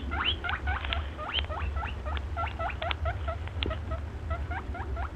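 An animal giving rapid, high squeaking chirps, about six a second, each sliding down in pitch, over a low steady rumble. The sound stops abruptly at the end.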